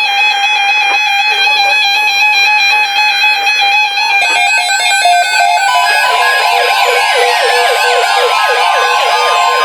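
Several NOAA weather radios sounding their alert alarms together, set off by a Severe Thunderstorm Watch broadcast: loud electronic beeping tones, joined about four seconds in by repeating warbling, siren-like tones, with a steady high tone entering near the end.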